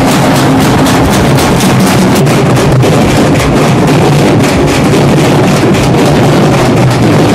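Several dappu frame drums struck with sticks, played together in a loud, fast, steady beat.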